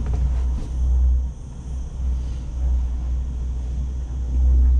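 Low, uneven rumble inside a climbing cable car gondola, dipping briefly about a second and a half in and swelling louder near the end.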